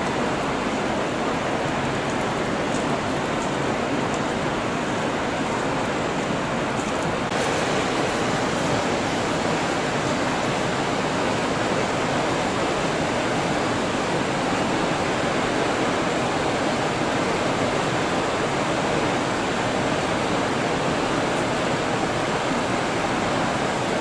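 Steady rushing of the Krimml Waterfalls, a tall cascading mountain waterfall, with no break; it grows slightly louder about seven seconds in.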